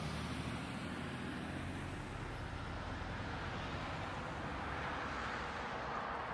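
Steady low hum of a car's engine and road noise heard from inside the cabin, as a dashcam picks it up in city traffic, with the hiss of traffic growing slightly near the end.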